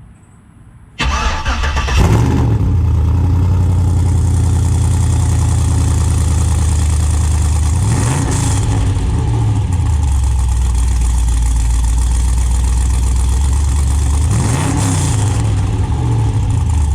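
Car engine starting about a second in and then idling, its revs rising and falling briefly twice, about eight and fourteen seconds in.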